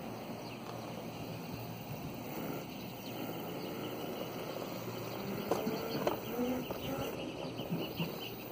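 Small electric go-kart driven by brushless hoverboard hub motors rolling slowly over concrete: a steady rolling noise, with a few sharp knocks and rattles about five to six seconds in.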